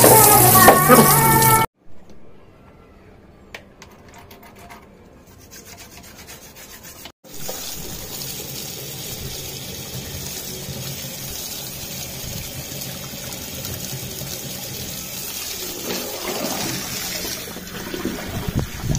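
Tap water running steadily over a car intercooler core and splashing into a plastic bucket as the intercooler is flushed out. It starts after a short loud pitched passage that stops abruptly and a few quiet seconds, and the splashing grows louder and more uneven near the end.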